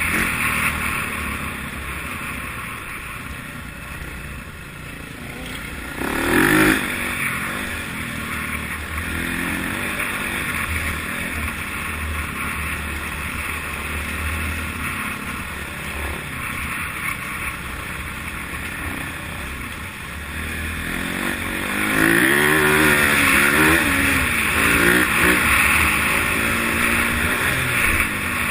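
Dirt bike engine under way, revving up and down as the bike rides. It gives a brief loud rev about six seconds in and revs harder over the last several seconds.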